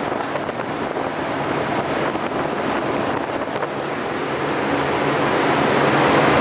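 Turbocharged Ford Focus 2.0 Zetec engine running with a steady rushing noise and a low hum underneath, growing louder toward the end.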